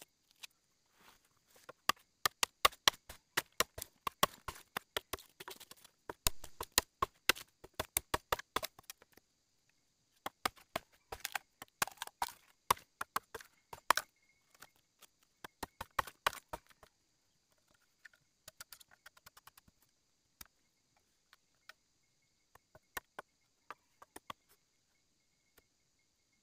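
Machete chopping and splitting a green bamboo stalk: quick runs of sharp cracks and knocks in two long bursts, then scattered snaps as the split bamboo is cut and pried apart.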